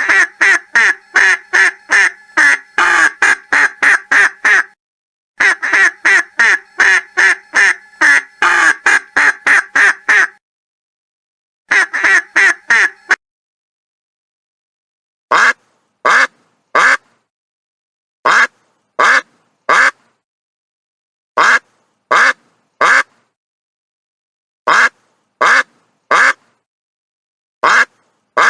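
Duck quacking: long runs of rapid quacks, about three a second, broken by short gaps in the first half. After a pause of about two seconds, the quacks come in groups of three, a few seconds apart.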